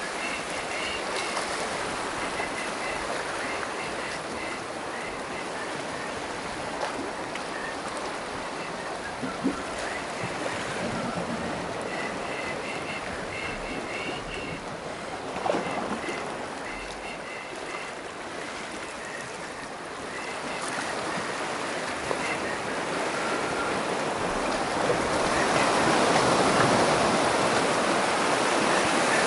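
Sea surf washing and breaking against a rocky shore, a steady rush of water that swells louder near the end.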